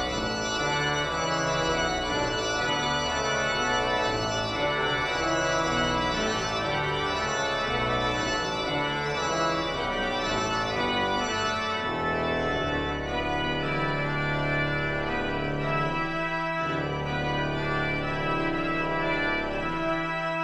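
Church organ played on manuals and pedals: full, sustained chords over a moving pedal bass. From about halfway through they give way to longer held chords.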